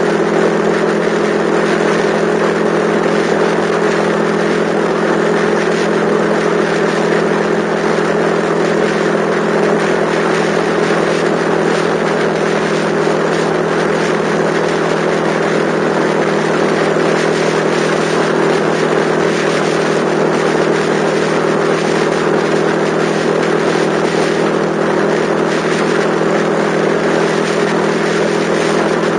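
Yamaha XTZ125's single-cylinder four-stroke engine running at a steady cruising speed, its note unchanging, over wind and road noise.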